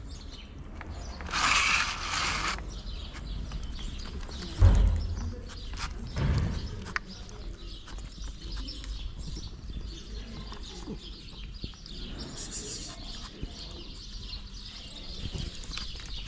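An aerosol antiseptic wound spray hisses in two bursts on a cat's injured leg: a longer burst of a second or so near the start and a short one about twelve seconds in. A loud thump comes about four and a half seconds in, with faint bird chirps and small ticks of cats eating wet food underneath.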